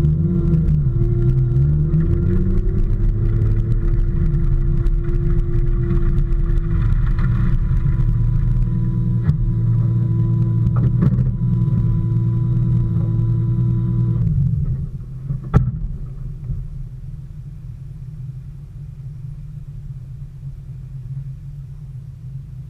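Car engine heard from its own bonnet, the engine note shifting in the first few seconds and then running steadily. About 14 seconds in the engine sound stops, leaving a low rumble, with one sharp knock a second later.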